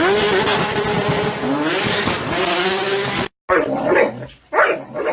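A loud rushing noise with a wavering tone that rises and then holds. It cuts off abruptly about three seconds in, and a dog barks twice.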